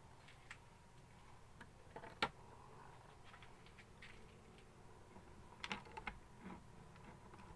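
Scattered light clicks and taps of small hard objects being handled, the sharpest about two seconds in and a quick cluster near six seconds, over a faint steady hum.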